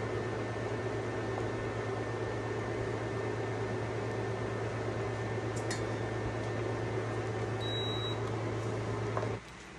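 Induction cooktop running with a steady electrical hum and cooling-fan noise while heating a pot of water at the boil. The hum stops suddenly near the end.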